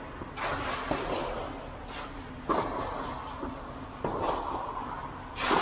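Tennis ball struck back and forth in a rally: sharp racquet hits about one and a half to two seconds apart, the loudest near the end, each ringing on in the echo of an indoor air dome.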